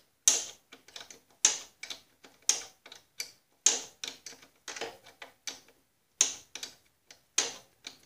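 Small wrench clicking as it turns a lawn tractor's brake adjusting screw down to put more pressure on the brake spring. There is a sharp metal click about once a second, each followed by a few lighter ticks, in a steady rhythm.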